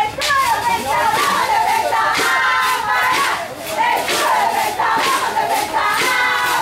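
Many young voices shouting and chanting together, loud and continuous, with yells overlapping throughout.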